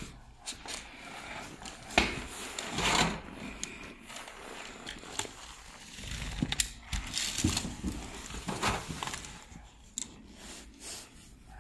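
Clicks, rattles and rubbing of a Soul Eater mini crossbow being handled while its string is fitted, with one sharp click about two seconds in.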